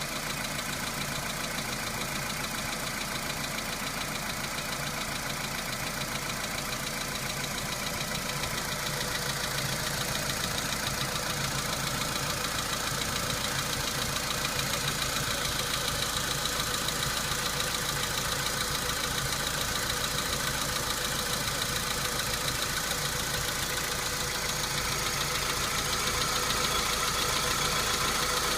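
Volkswagen Polo Sedan petrol engine idling after a cold start, with a steady rapid knock running through the idle. The owner says the knock fades as the engine warms up and asks what it is.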